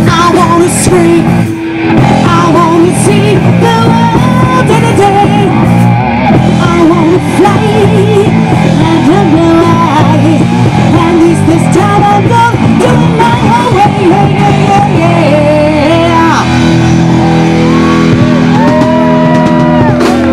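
Live rock band playing, with a woman singing lead over guitar and keyboard. From about three-quarters of the way in, the band holds long sustained notes.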